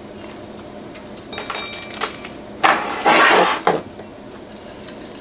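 Small metal hand tools and parts clinking as they are set down on a wooden desk, a few sharp clicks with brief metallic ringing, followed by a louder noisy handling sound lasting about a second.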